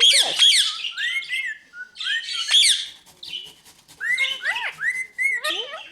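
Pet parrots chirping and whistling in quick, overlapping calls: short rising-and-falling whistles mixed with rapid high chirps, pausing briefly about halfway through.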